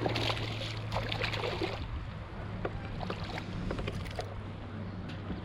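A hooked largemouth bass splashing and thrashing at the surface beside a kayak, loudest for the first two seconds or so, followed by a few light ticks as it is lifted from the water. A steady low hum runs underneath.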